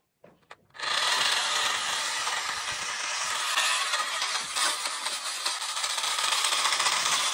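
Battery-powered toy steam train running on plastic track: a steady mechanical whirring rattle from its small motor and wheels. It starts about a second in, after a couple of faint clicks.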